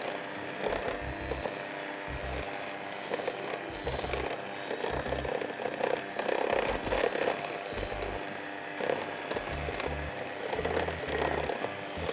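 Electric mixer running in a bowl of flour, chilled butter and sugar for cookie dough, its sound swelling and easing unevenly. Background music plays underneath.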